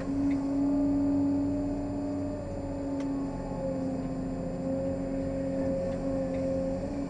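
Caterpillar 385C excavator's diesel engine and hydraulics working under load as the bucket digs into dirt, heard inside the cab: a steady hum that eases slightly about two and a half seconds in, with a single sharp click about three seconds in.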